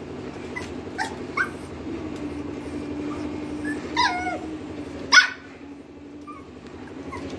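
Lhasa apso puppy yipping and barking in short, high calls: a few quick yips in the first second and a half, a falling whine about four seconds in, and its loudest bark just after five seconds.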